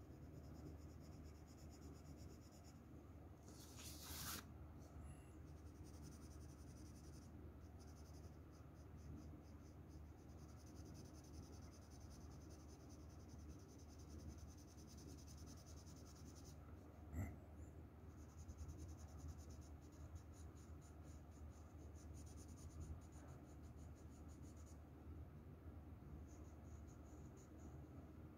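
Faint scratching of a graphite shading pencil on paper in quick, repeated strokes, with a brief louder scrape early on and a single sharp click about two-thirds of the way through.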